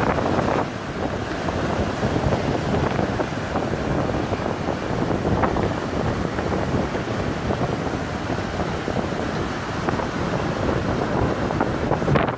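Small surf breaking and washing up a pebbly beach, with steady wind rumbling on the microphone.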